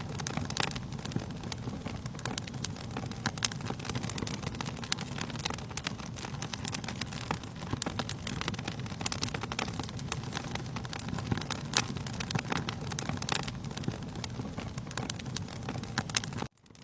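Wood fire in a fireplace crackling, with irregular sharp pops and snaps over a steady low rumble. The sound cuts out abruptly for a moment near the end.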